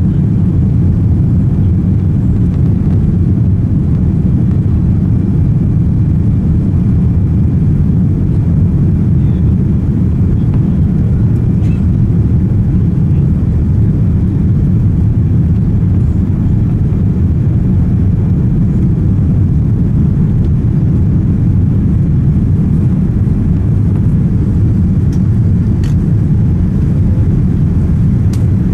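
Steady low rumble inside the cabin of a Boeing 787 Dreamliner: engine and airflow noise that stays even throughout.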